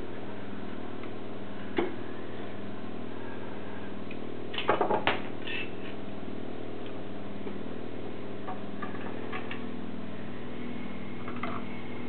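A steady hum runs throughout, with a sharp click about two seconds in, a quick run of four clicks around five seconds in, and a few fainter ticks later.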